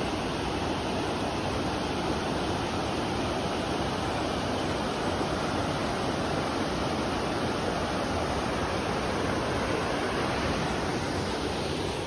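Clear mountain river rushing over boulders and through small rapids: a steady, even rush of water.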